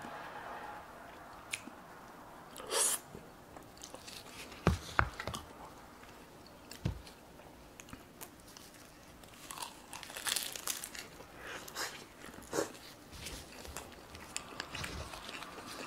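Close-miked eating: bites and chewing with scattered crisp crunches, among them the dry seaweed wrap of a triangle kimbap being bitten into.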